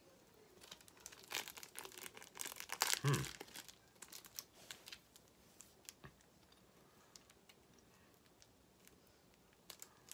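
Plastic wrapping on a block of cheese being torn open and crinkled by hand, in a dense burst from about a second in to about four seconds in, then a few scattered crinkles.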